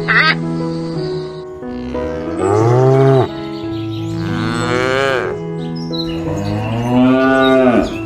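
Cow mooing: three long calls, each rising and falling in pitch, over background music.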